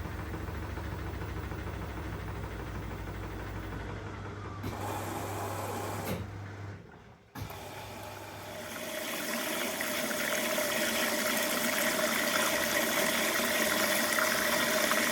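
Elin washing machine between stages: a steady low electric hum runs and cuts off about seven seconds in, and after a short lull water starts rushing in through the inlet valve with a steady hiss, filling the drum for the second rinse.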